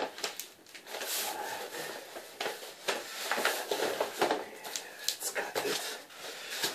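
Black plastic underlayment film rustling and crinkling as it is unrolled and smoothed along the floor, with irregular crackles and small taps throughout.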